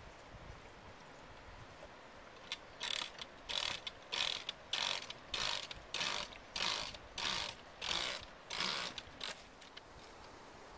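A lever-operated backpack sprayer being pumped: about ten strokes of the pump in a steady rhythm, a little under two a second, beginning a couple of seconds in and stopping near the end. The pumping builds pressure in the tank for spraying.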